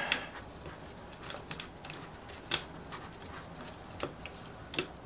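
Light scattered clicks and knocks of the OS FF-240 Pegasus model engine's metal crankcase being handled and turned on a bench mat, with a sharper tap about two and a half seconds in and another near the end.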